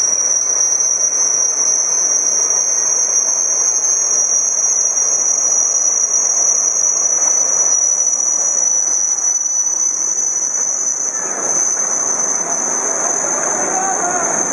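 Tsunami floodwater rushing and churning debris through a concrete courtyard, a loud steady rush with grinding, under a constant high-pitched whine.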